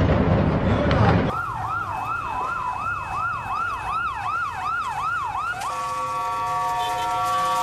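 For about the first second, loud rushing noise with crackles. Then an emergency vehicle siren wails up and down about twice a second, switching about four seconds later to a steady multi-tone blare.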